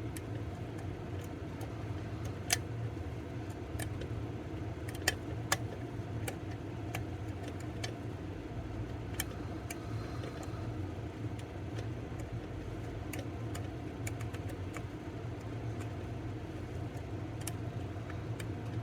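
Scattered sharp clicks and ticks of lock picks working the pins of an EVVA DPI pin tumbler lock as it is re-picked from the start, over a steady low background hum.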